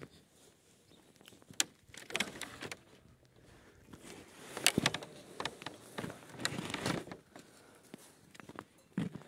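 Footsteps crunching in fresh snow, an irregular series of short crackly crunches, heaviest about halfway through.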